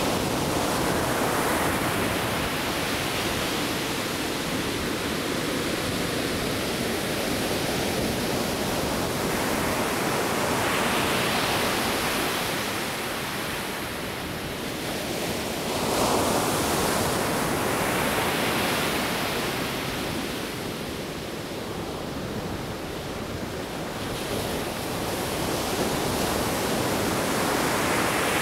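Ocean surf breaking and washing up a sandy beach: a steady rush that swells as each wave breaks and eases between them.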